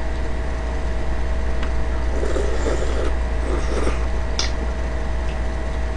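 Slurping and eating of perilla buckwheat kalguksu noodles eaten with chopsticks, in rough patches about two to four seconds in, with a single click a little after four seconds, over a steady low hum.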